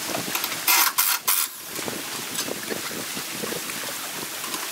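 A handheld cordless power tool run in three short trigger bursts about a second in, over a steady rush of water and wind noise.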